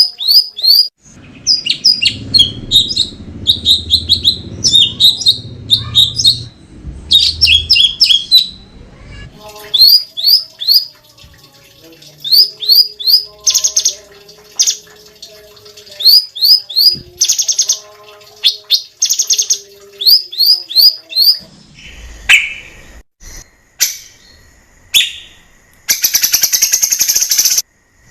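Cucak cungkok singing loud, sharp rising whistled notes in rapid groups of three or four. Near the end it gives a harsh, rasping buzz.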